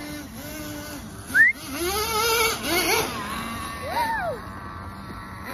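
Small nitro engine of an XTM X-Cellerator RC monster truck, its whine rising and falling in pitch as the throttle is worked. A brief sharp high squeal comes about a second and a half in.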